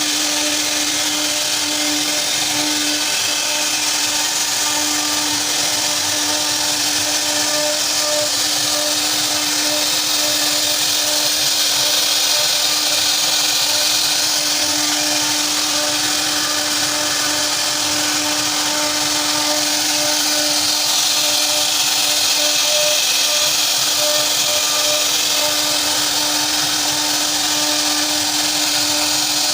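CNC router spindle running at a steady high whine while carving a 3D design into wood, with a hiss of cutting that slowly swells and eases.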